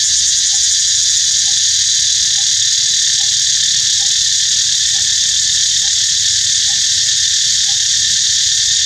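Loud, steady, high-pitched chorus of insects droning without a break, with a faint short note repeating about once a second underneath.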